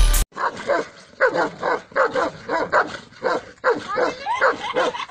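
Large guard dogs, a Tibetan mastiff and a Gaddi dog, barking in a rapid run of short barks, about three a second, with a few higher whining notes mixed in about four seconds in.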